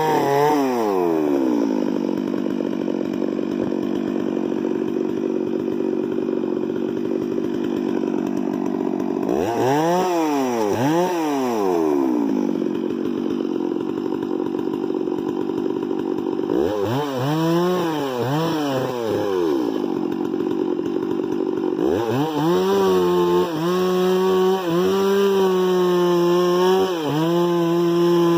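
Two-stroke chainsaw running hard at high revs while working wood, its engine pitch dipping and climbing back several times as the throttle is eased off and opened again.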